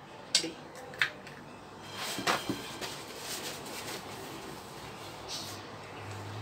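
Two sharp light clicks of eggshell halves being set down on a ceramic plate, then a paper towel rustling as hands are wiped on it.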